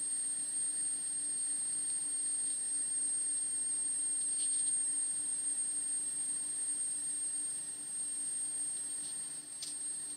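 Gas heating boiler running: a steady rushing noise with a low hum and a thin high whine held throughout, and a light click near the end.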